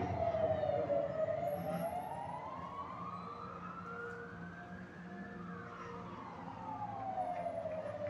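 Emergency-vehicle siren wailing in slow sweeps: the pitch falls to its lowest about a second in, climbs steadily for about four seconds, then falls again near the end.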